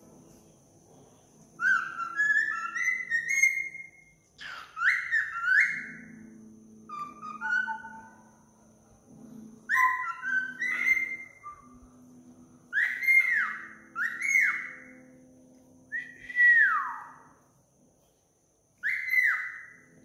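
Cockatiel whistling in short phrases of rising, swooping notes every second or two, with one long falling note near the end.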